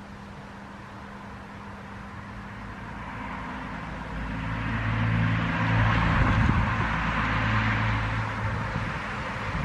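A car passing by: engine hum and tyre noise swell over a few seconds, loudest about halfway through, then ease off, over the steady rustle of wind in birch leaves.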